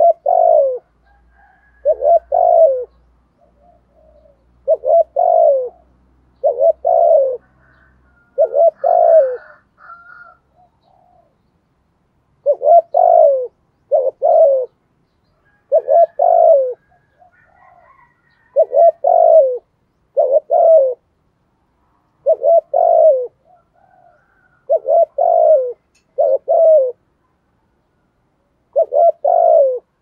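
Spotted dove cooing with the deep "giọng thổ" voice prized in decoy birds: short low coos repeated every one to two seconds, many coming in quick pairs, with a longer pause about two-fifths of the way through.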